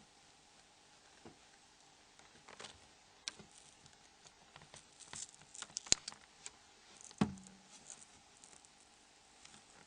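Light plastic clicks and taps from a Nokia N71 phone's plastic parts being handled and pried with small tools during disassembly: irregular faint clicks, with two sharper knocks about six and seven seconds in.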